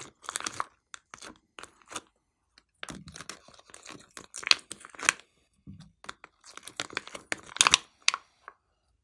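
Thin clear plastic tray crinkling and crackling in irregular clusters as fingers squeeze it and pry sticky green jelly slime out of its compartments, with short pauses in between.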